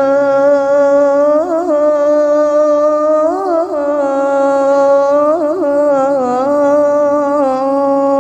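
A male muezzin chanting the adhan in the Mecca style into a microphone. He draws out the phrase 'hayya ʿala al-falah' as one long note on a steady pitch, ornamented with several quick melismatic turns.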